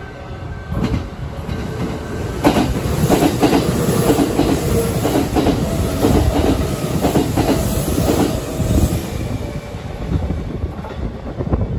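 Kintetsu electric train passing through the station without stopping, its wheels clacking over the rail joints. Loudest from about two and a half seconds in until about nine seconds, then fading as the train clears the platform.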